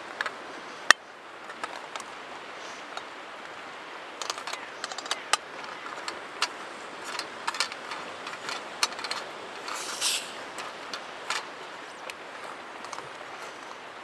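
Small plastic clicks and light knocks as a backpacking gas stove is put together by hand: a fold-out plastic stand is snapped onto a gas canister and the burner is screwed onto it, with one sharp click about a second in and a brief hiss about two-thirds of the way through. A steady background hiss runs underneath.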